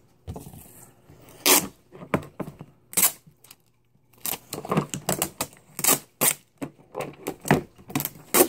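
Clear hard-plastic display case of a GoPro Hero4 retail box clicking and knocking as hands pull it open by its tab: a run of irregular sharp clicks with a quiet second near the middle.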